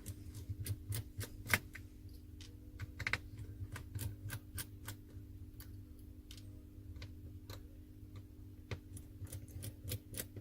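Irregular small clicks and taps of a screwdriver and small parts against a smartphone's frame during disassembly, a few a second, over a steady low hum.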